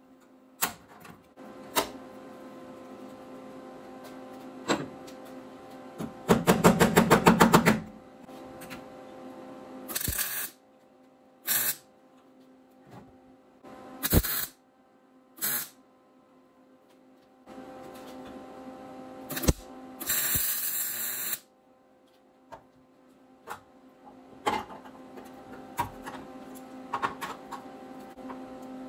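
MIG wire welder tack-welding a sheet-metal patch panel onto a car's frame rail. Several short bursts of arc crackle come with pauses between them; the longest is a fast-pulsing buzz of about a second and a half. A steady low hum runs underneath.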